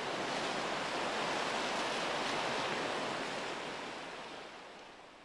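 Sea waves washing over a rocky shore, a steady rushing noise that fades out over the last second or two.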